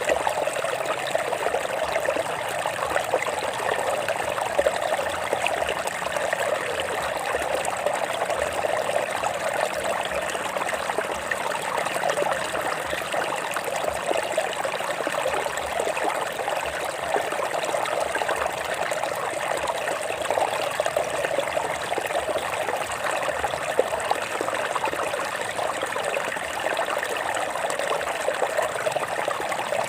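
Stream water running and trickling over rocks, a steady, even rush and burble.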